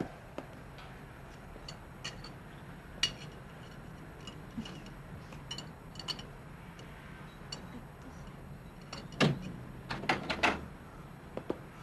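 Scattered light clinks of dishes and cutlery at a dinner table, then, about nine seconds in, a cluster of louder knocks and clatter as a wooden door is opened.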